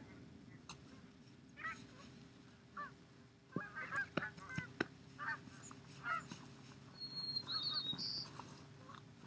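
A flock of geese honking overhead, repeated short calls through the whole stretch. A few sharp clicks come close together about four seconds in.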